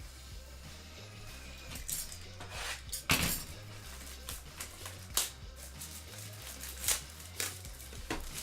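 Trading cards and their foil and plastic packaging handled, giving a scatter of sharp crinkles and clicks, the loudest about three seconds in, over steady background music.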